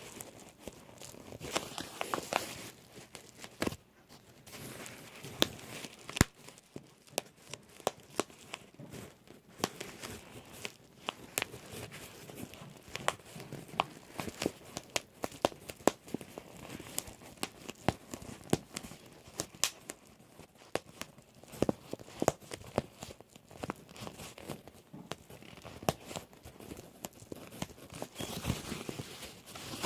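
Plastic bubble wrap being crinkled and squeezed, its bubbles popping in sharp, irregular snaps, several a second.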